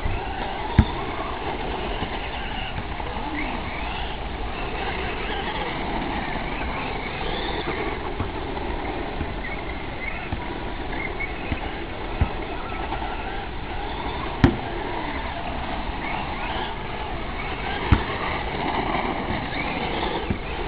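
Radio-controlled car's motor heard from a distance, its whine rising and falling with the throttle over a steady low rumble, with a few sharp knocks.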